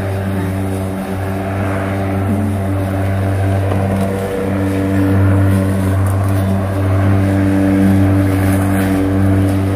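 Lawn mower engine running steadily at a constant speed while cutting grass.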